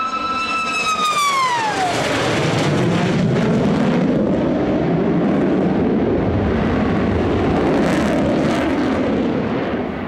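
Sukhoi Su-57 fighter jet flying past: the engines' high howl falls steeply in pitch over the first two seconds as the jet goes by, then gives way to a loud, steady, low jet rumble.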